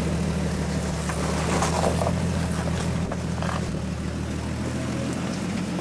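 Rock crawler's engine running steadily at low revs as the buggy crawls over boulders.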